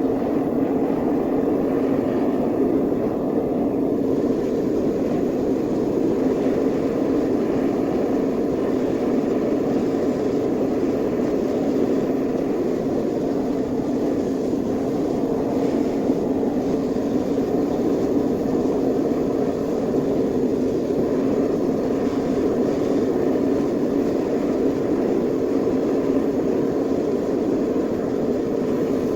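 Gas-fired smelting furnace burner running with a steady rushing noise, melting down aluminum scrap.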